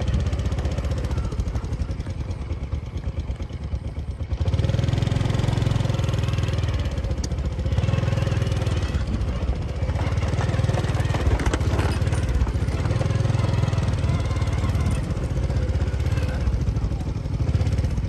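Motorcycle engine running under load as it tows a loaded cart over a soft, muddy grass track. It eases off about two seconds in, then picks up louder a couple of seconds later and keeps pulling.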